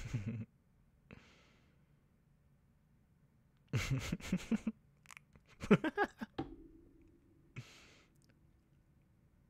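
A man laughing softly into a close microphone: breathy chuckles and exhaled sighs in a few short bursts, the strongest from about four to six seconds in.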